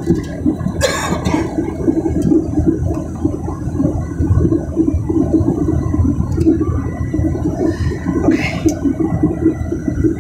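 Steady rushing cabin noise of a Boeing 737 climbing after takeoff: jet engines and airflow heard through the fuselage. Two brief hissy rustles cut in, about a second in and near the end.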